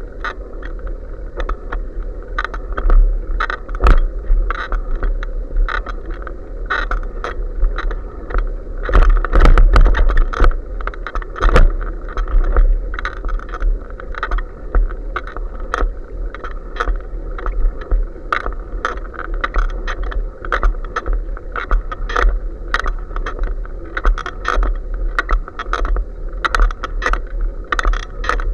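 Bicycle ride noise heard through a bike-mounted action camera: a steady stream of rattling and clicking from the bike and camera mount shaking over the asphalt, over a low rumble. A few heavier knocks come about a third of the way in.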